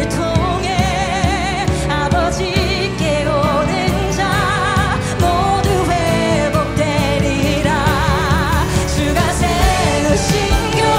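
Live contemporary worship song: several singers holding long notes with vibrato over a full band of keyboards, guitars, bass and drums.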